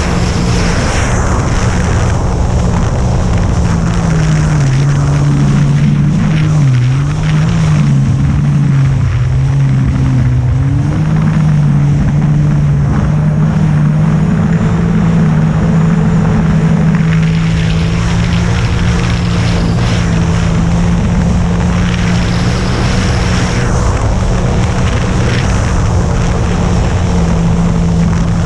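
Jet ski engine running under way, a steady drone whose pitch dips and recovers several times between about five and eleven seconds in, then holds steady.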